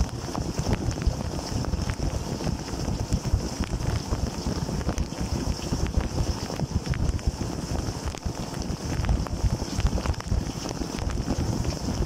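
Dishwasher wash cycle heard from inside the tub: water jets spraying and splashing against the wire racks, a steady low rumble with many small irregular ticks of water striking.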